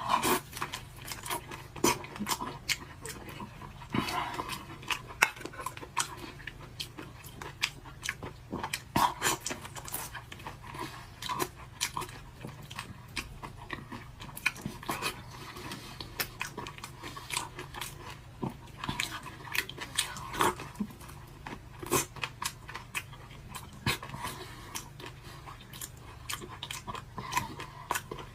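Close-up eating sounds of raw black tiger shrimp: shells crunching and cracking in irregular sharp clicks, with sucking and chewing, over a steady low hum.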